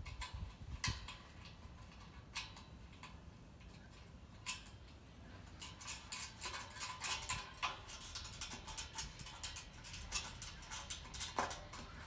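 Faint, irregular small metallic clicks and taps of nuts, washers and bolts being finger-tightened through a steel corner bracket on a steel C purlin. The clicks are sparse at first and come thick and quick in the second half.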